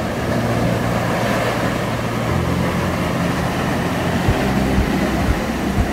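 Surf washing onto a sandy beach, with wind rumbling on the microphone and a few low thumps from wind gusts in the second half.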